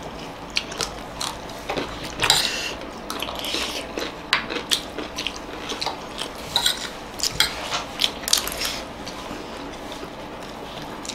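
Eating at close range: chewing and mouth sounds, with irregular short clicks of a metal spoon against plates of biryani.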